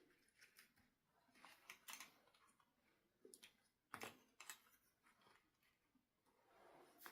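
Faint, scattered clicks and short rustles of small objects being handled, the sharpest cluster about four seconds in.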